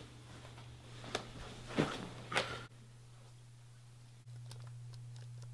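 A few short rustles and knocks of a person moving on a bed with a laptop, then faint clicks of a laptop keyboard being tapped near the end, over a low steady hum.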